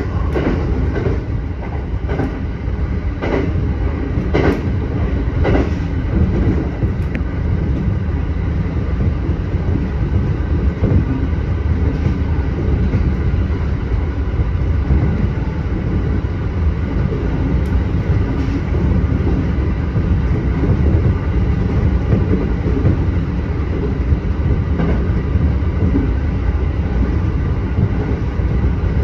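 Passenger train running along the line: a steady rumble of wheels on rail, with a few sharp clicks of the wheels passing over rail joints in the first six seconds or so, then even running.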